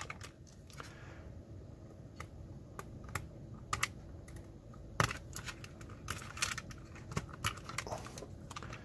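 Irregular small plastic clicks and scrapes as small white wire-to-board connectors are pried and pulled off a projector's circuit board, the sharpest click about five seconds in.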